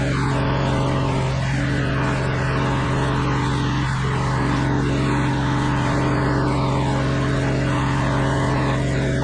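Petrol-engined pressure washer running steadily under load, its engine hum carried over the hiss of the high-pressure water spray.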